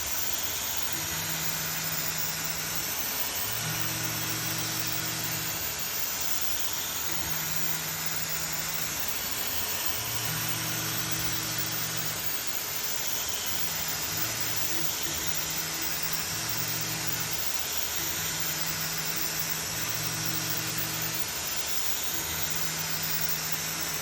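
CNC milling machine running: a steady hiss with a low hum that cuts in and out every second or two.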